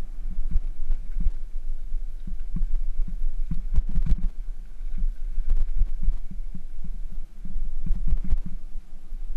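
Bicycle rolling fast over a bumpy dirt singletrack: a steady low rumble with irregular thudding jolts, and a few sharper rattling clicks about four seconds in.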